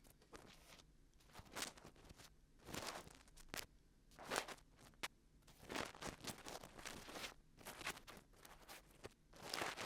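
Dried glue being peeled off the ear of a 3Dio binaural microphone, heard close up as faint, irregular crackling and soft peeling pulls with short pauses between them.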